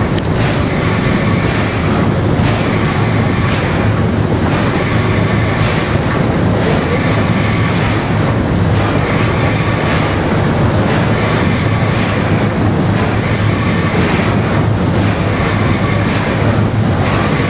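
Paddle steamer under way: the paddle wheels and steam engine beat out a steady, even rhythm, about one beat a second, over a constant low rumble.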